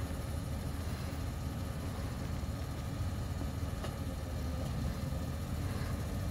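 2010 Porsche Cayenne GTS's V8 idling with a steady low hum while its air suspension raises the body, with a faint click about four seconds in.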